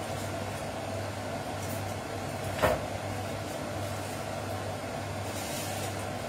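Steady hum of a kitchen cooker-hood extractor fan running, with a single sharp knock about two and a half seconds in, as of something set down on the counter.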